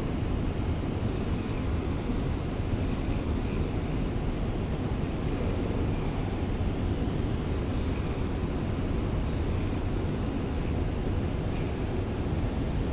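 Steady low rushing rumble with no distinct events.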